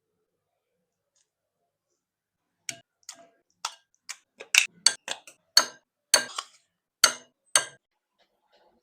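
Irregular sharp taps and clicks of kitchen utensils and cookware being handled, about a dozen over five seconds, starting after a quiet opening of about two and a half seconds.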